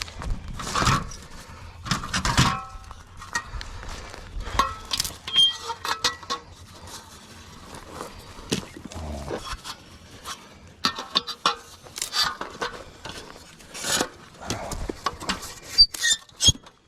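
Irregular clatter of things being handled: short knocks, clinks and rustles coming in clusters, with the loudest ones about a second in, about two seconds in, and near the end.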